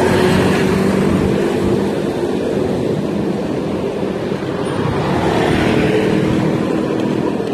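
Street traffic, with motorcycles and cars running close by as a steady, loud drone. A couple of engine tones rise and fade, one near the start and one about five seconds in.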